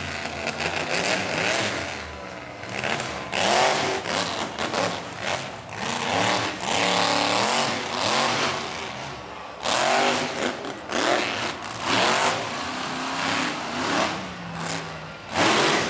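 School-bus-bodied monster truck's engine revving hard in repeated surges, its pitch climbing and falling again and again.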